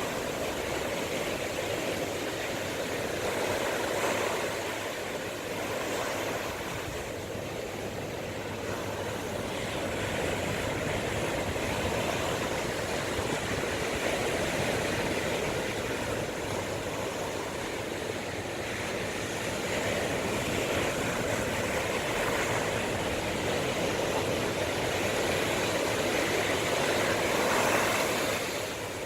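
Sea waves washing onto the shore, a steady rushing that surges and eases every few seconds, loudest near the end.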